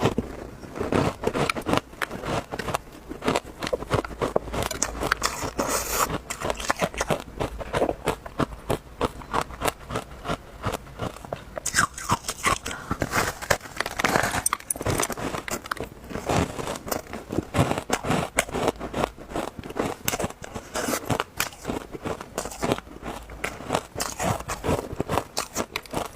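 Matcha ice being bitten and chewed close to the microphone: a continuous run of sharp, crisp crunches, several a second.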